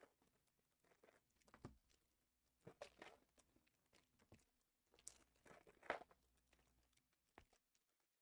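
Faint tearing and crinkling of Panini Prizm basketball card pack wrappers as packs are opened and cards handled, in a few short spells, the loudest about six seconds in.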